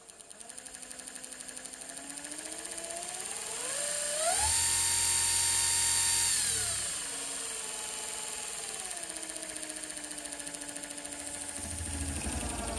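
Baldor MTE-4060-FL-3A brushed DC servo motor running freely on new carbon brushes and a rebuilt commutator, its whine rising in pitch as the supply voltage is raised, holding at a high speed for a couple of seconds, then winding back down to a lower steady speed. Near the end a hand grips the shaft to load it, and the pitch sags as a low rumble joins in.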